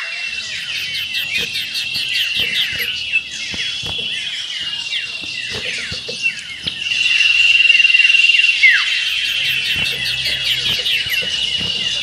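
Common iora (cipoh) singing in the rapid chirping, trilling style: dense runs of quick, shrill, downward-sweeping whistled notes. A long high trill is held steady from about seven to nine seconds in.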